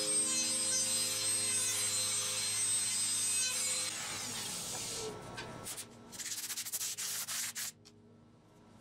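Background music for the first few seconds. Then a clear plastic sheet is handled and rubbed by hand, giving a run of irregular rasping, crinkling strokes.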